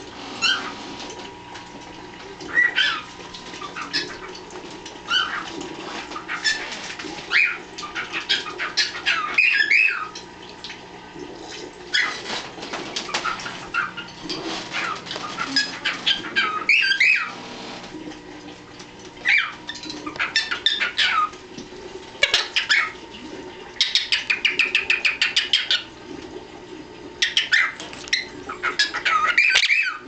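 Pet parrots calling: a running string of short, sharp chirps and squawks, with a buzzy rattling chatter of about two seconds roughly three-quarters of the way through.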